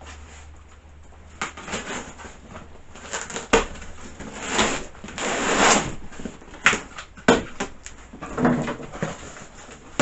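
Cardboard packaging of a chainsaw being opened and handled: rustling and scraping of box flaps and packing, with a few sharp knocks and clicks.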